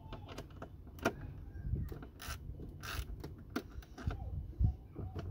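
Scattered clicks, knocks and short rustles of hands and a tool working at a car's plastic glove box while one of its retaining fasteners is undone.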